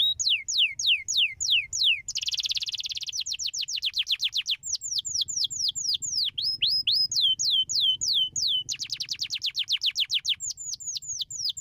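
Domestic canary singing: runs of quick downward-sliding whistled notes, several a second, broken twice by a fast rolling trill.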